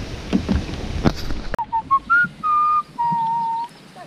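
A person whistling a tune in clear held notes that step up and down, starting about a second and a half in. Before that, a rush of wind and water with a few splashes.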